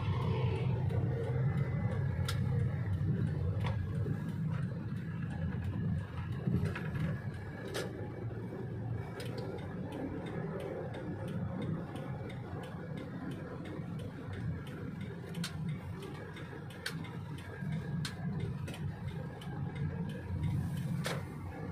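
Steady low rumble of a car's engine and tyres heard from inside the moving cabin, with a few faint scattered clicks.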